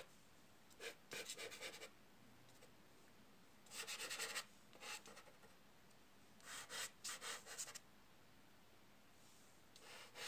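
Soft pastel scratching and rubbing on rough paper as light tones are laid onto the drawing: faint bursts of quick strokes, each about a second long, around one, four and seven seconds in, with a few shorter ones in between.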